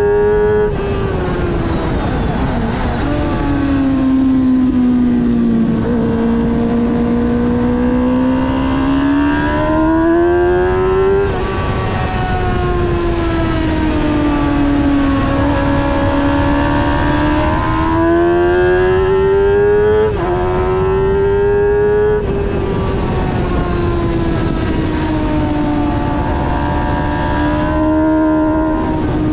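Onboard sound of a motorcycle engine at full track pace. The engine note climbs steadily under acceleration, dips suddenly at each gear change or braking point (about half a dozen times), and sags through the corners, over a constant rush of wind and road noise.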